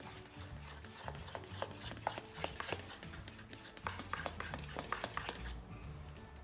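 Utensil clinking and scraping against a steel mixing bowl as waffle batter is stirred, a few irregular clicks a second that stop about a second before the end.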